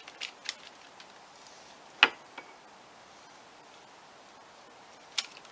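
A few short, sharp clicks and taps while a silicone pastry brush is worked between the butter dish and the croissant-dough twists on the baking sheet. The loudest click comes about two seconds in, and another comes near the end.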